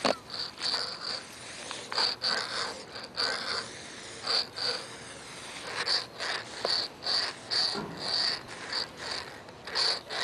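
A stick of graphite scraping across a concrete wall in short, scratchy drawing strokes, about two a second, with a brief pause about halfway through.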